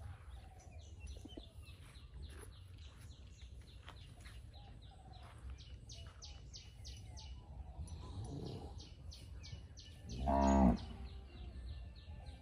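White zebu cow giving one short, low moo about ten seconds in, with a fainter low call just before it. A rapid high chirping, about three a second, runs through the background.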